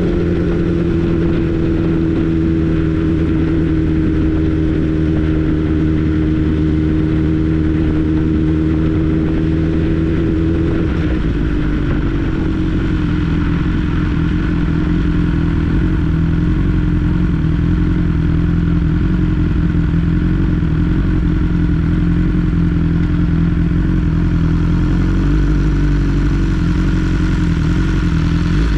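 2022 BMW S 1000 R's inline-four engine running steadily while the motorcycle is ridden along, its note sinking slightly and then changing about eleven seconds in.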